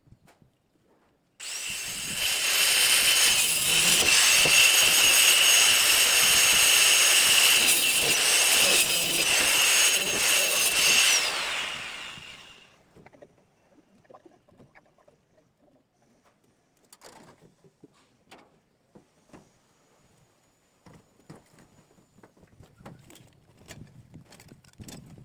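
A handheld power tool runs for about eleven seconds. Its motor whine rises as it starts, holds steady while it works, and falls away as it stops. Faint scattered clicks and knocks follow.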